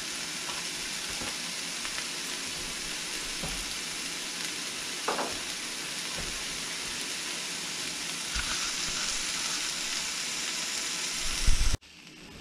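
Diced onion sizzling in hot avocado oil in a nonstick wok, a steady frying hiss as it softens toward translucent. A knock comes near the end, and the sizzle then cuts off suddenly.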